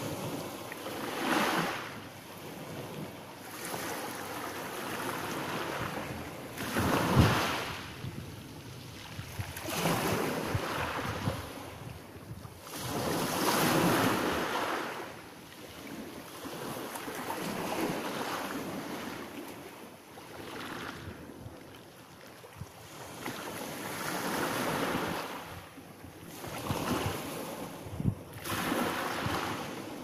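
Small sea waves breaking and washing up a pebble beach, each surge swelling and fading every few seconds. The loudest surge comes about seven seconds in.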